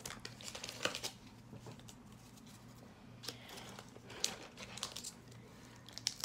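Faint rustling and crinkling with a few light, sharp clicks: Pokémon trading cards and foil booster-pack wrappers being handled, over a low steady room hum.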